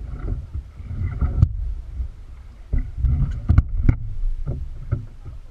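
Sounds of kayaking on open water: a steady low rumble of wind buffeting the microphone, broken by several sharp knocks, most of them bunched together in the middle.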